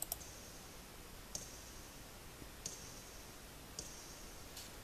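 Four faint, sharp clicks, evenly spaced about a second and a quarter apart, each trailing a brief hiss, over a low background hiss.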